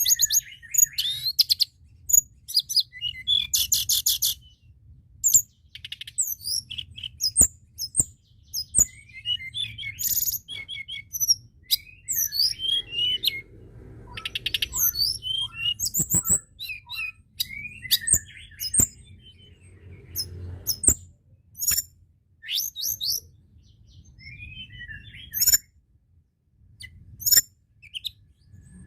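Tledekan gunung singing a busy, varied song of short high-pitched chirps, whistled slurs and quick rattling trills, with brief gaps between phrases, over a faint low hum.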